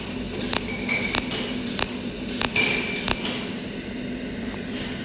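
Cold welding machine firing spot welds with its tungsten electrode, each pulse a sharp snap, about eight at roughly two a second, stopping about three seconds in. A steady hiss and a low hum continue underneath.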